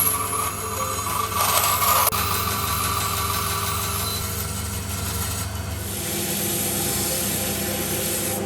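Woodworking power tool motor running steadily, with a short burst of cutting noise about a second and a half in.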